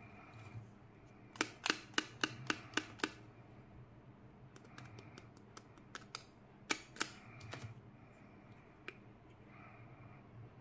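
Hard plastic candy ball capsules clicking and knocking as they are handled and pried open. A quick run of about seven sharp clicks comes a second and a half in, then scattered clicks follow.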